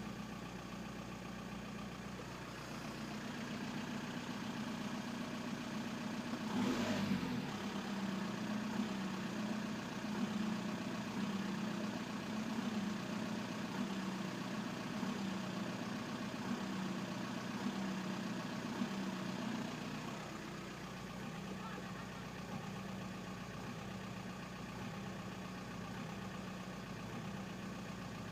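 VW Bora 1.9 TDI AJM four-cylinder pumpe-düse diesel engine idling, which the owner blames on bad injectors. There is a brief louder burst about seven seconds in, and the sound settles a little lower after about twenty seconds.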